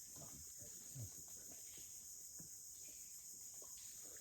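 Faint mangrove 'breathing' sound: scattered small clicks and pops over a steady high-pitched hiss.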